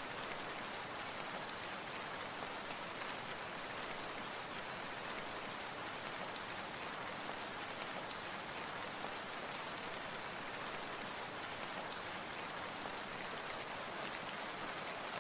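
Steady falling water, like rain, making an even hiss that does not change.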